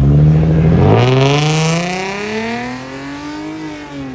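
A performance car accelerating hard away. An upshift drops the engine note about a second in, then the revs climb steadily through the next gear, and there is another shift near the end as the sound fades away.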